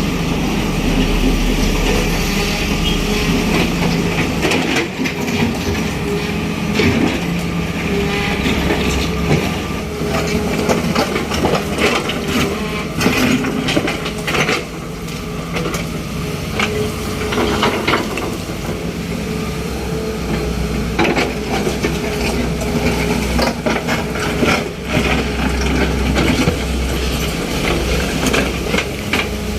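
Daewoo Solar 130W-III wheeled excavator's diesel engine running steadily, with frequent knocks and clanks throughout.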